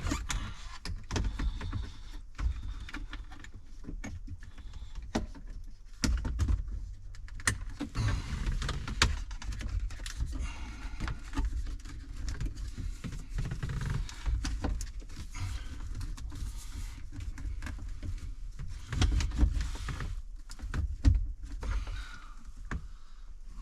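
Plastic dash trim and a gauge pod being handled: a wiring connector plugged in and the pod pushed into the dash, with scattered clicks, knocks and rubbing. It is a test fit that does not go in.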